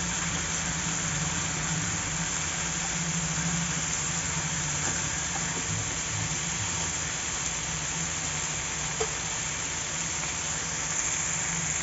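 Masala-coated chicken pieces sizzling steadily in hot oil on a tawa, with a steady low hum underneath.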